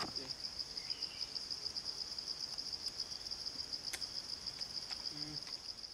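Insects trilling steadily in the forest: a continuous high-pitched, rapidly pulsing buzz.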